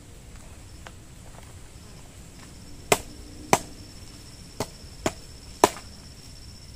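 Five sharp chopping strikes of a blade on wood, unevenly spaced over about three seconds, the last one the loudest.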